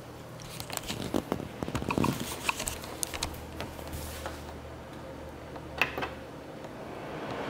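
Scattered clicks and knocks as the control buttons on a Bionaire tower air purifier are pressed and the camera is handled. Near the end a steady airflow hiss rises as the purifier's fan comes on.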